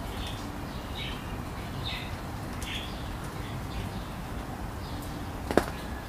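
Parakeets chirping in short calls about once a second, over a steady low city rumble, with one sharp click about five and a half seconds in.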